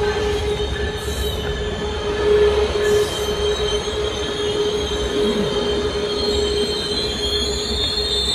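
Diesel Coaster commuter train running at the station platform: a steady low rumble with a steady, held high tone over it.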